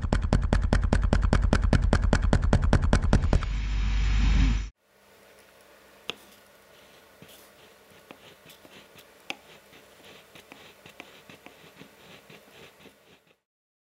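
Woofer with a perished, split foam surround being driven by a deep bass signal: its loose cone rattles in a rapid run of sharp clicks, several a second, over a loud low hum, which is the fault of a rotted surround. The sound cuts off suddenly about five seconds in, and a much fainter ticking follows until near the end.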